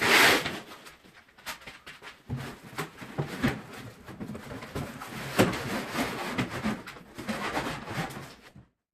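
Packaging being handled: irregular rustling, scraping and knocks, with a loud rustle right at the start, cutting off abruptly near the end.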